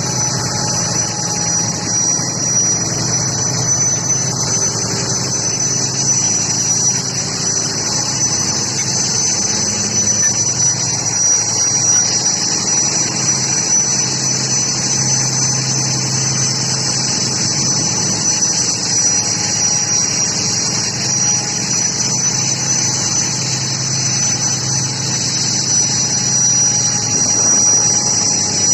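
A fishing boat's engine running steadily, with a constant high-pitched whine over it.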